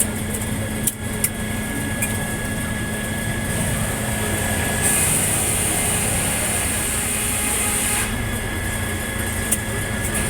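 Circular sawmill running steadily, with a few sharp knocks near the start. About five seconds in, a harsh hiss joins for some three seconds, as the blade saws through the cottonwood log, then cuts off sharply.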